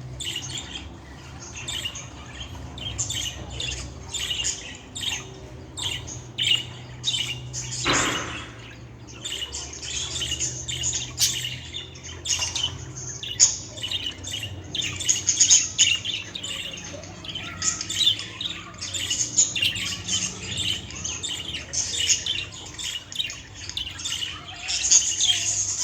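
Budgerigar warbling and chattering: a dense, continuous run of short, quick chirps and squawky notes over a low, steady hum.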